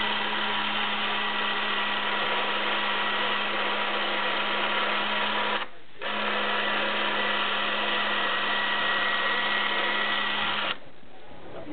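Canon 310XL Super 8 film camera running, its drive motor and film transport giving a steady mechanical whirr with a low hum. It stops for a moment a little before halfway, starts again, and cuts off shortly before the end.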